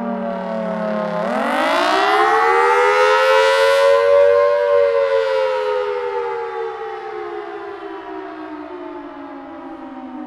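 Federal Signal Thunderbolt 1003 outdoor warning siren sounding. Its low tone turns sharply upward about a second in and rises over a few seconds to a louder, brighter peak, then slides slowly down in pitch and fades.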